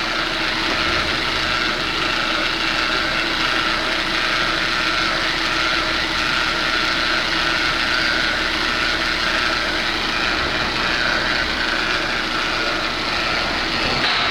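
Hyundai Veloster engine idling on the lift, with a steady whine from its six-speed automatic transmission. The transmission's pump is drawing air with the fluid through a clogged filter, which aerates the fluid.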